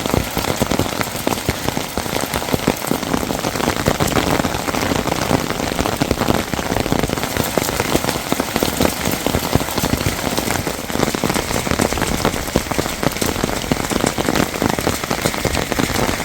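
Heavy rain falling steadily, a dense stream of drops striking close by without letting up.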